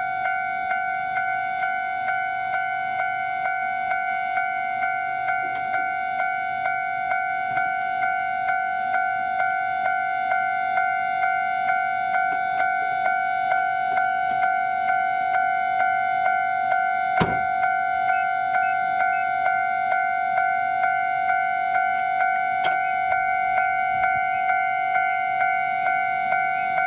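Japanese railway level crossing warning bell ringing continuously, a steady electronic clang repeating about one and a half times a second: the signal that a train is approaching and the barriers are coming down. A single sharp knock sounds about two-thirds of the way through.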